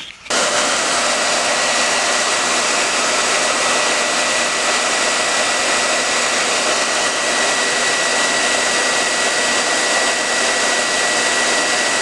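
Hair dryer switched on about a third of a second in and then blowing steadily, a rush of air with a thin high whine over it. It is playing hot air on a metal tumbler to heat heat-transfer vinyl before it is pressed down.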